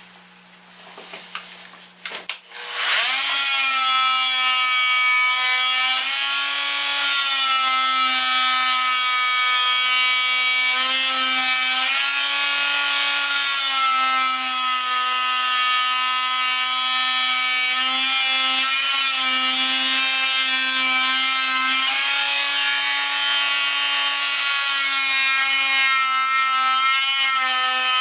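Oscillating multi-tool switched on about two and a half seconds in, after a few light knocks. It then runs steadily as it saws through the thin wooden wing of a turned vase: a buzzing whine whose pitch shifts slightly as the blade bites.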